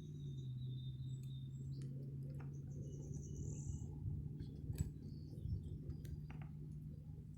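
Small birds chirping in short high calls over a steady low hum, with a few scattered clicks, the sharpest about five seconds in.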